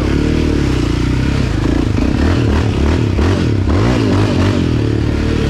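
ATV engine running under way on a rough trail, the revs rising and falling repeatedly, with clattering and rattling from the machine over bumps.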